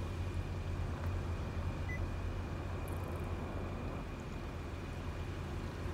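Steady low rumble of a car heard from inside the cabin, with a faint steady high tone above it.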